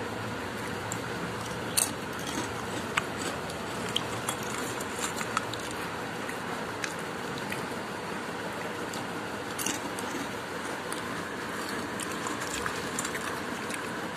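Crisp Bingo Mad Angles corn chips crackling and clicking as they are handled in a steel bowl: a few short, sharp clicks scattered over a steady background hiss.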